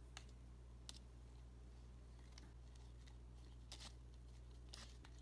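Faint, scattered scrapes and taps of a plastic fork stirring glitter glue in a plastic bowl, over a low steady hum.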